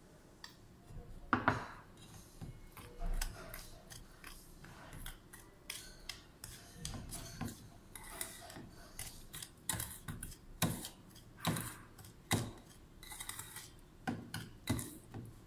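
Steel spoon scraping and clinking against a stainless steel plate in irregular strokes, stirring powdered sugar into a sticky lemon-pickle paste to work it into a stiff dough. The sharpest clink comes about a second and a half in.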